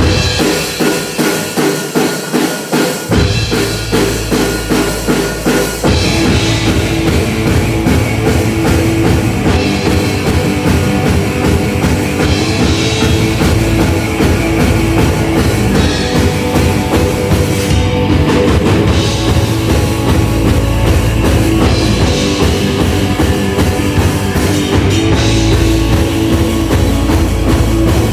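Rock band playing live, with the drum kit to the fore: the song opens on a steady, even pulse, the low end comes in about three seconds in, and the full band is louder and denser from about six seconds.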